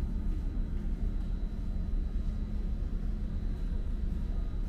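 Steady low drone of a ferry underway, heard inside the ship, with a faint high whine held throughout.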